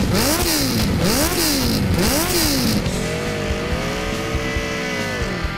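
Motorcycle engine revved hard three times, the pitch rising and falling with each blip, then held at high revs for a couple of seconds before falling off near the end.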